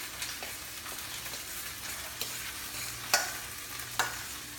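Chicken breasts sizzling as they sear in olive oil in a pan, a steady hiss, with a few sharp clicks of a fork against a plate as a salad is tossed; the loudest clicks come about three and four seconds in.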